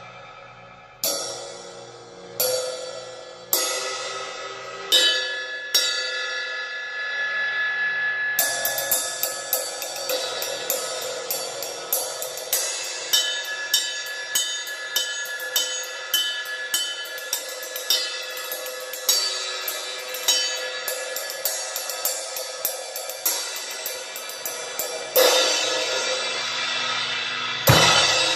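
Heavy, thick second-generation Zildjian Amir II 20-inch ride cymbal being played: a few single strikes each left to ring down, then from about eight seconds in a steady ride pattern of quick strikes, with a louder hit near the end.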